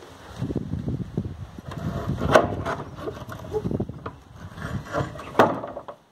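A locked shed door with an iron grille being pushed and rattled: rubbing and scraping, with two sharp knocks about two and a half seconds in and near the end.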